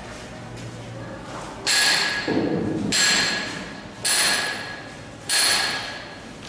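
Four hammer strikes, a second or so apart, each with a bright metallic ring that dies away before the next.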